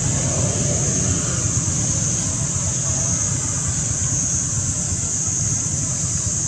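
Steady outdoor background noise: a low rumble under a constant high-pitched hiss, with no distinct events.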